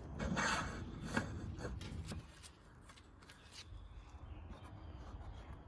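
Rustling handling noises with a sharp click about a second in, dying down to faint low room noise after about two seconds.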